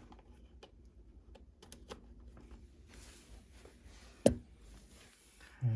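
Cable and hardware handling, with scattered small clicks and light rustling. One sharp click about four seconds in, as a cable plug is pushed home into a port.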